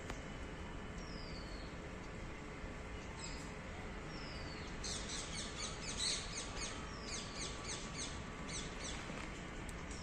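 Birds calling: a short, high falling whistle repeats every couple of seconds, and from about five seconds in a rapid run of high chirps goes on for several seconds, over steady outdoor background noise.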